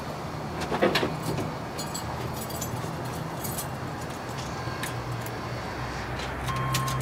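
1989 Chevrolet K5 Blazer's power tailgate window motor running with a steady low hum, lowering the glass slowly, with a knock about a second in. The owner wonders whether the slowness is a ground issue rather than a failing motor, since all the truck's window motors are slow.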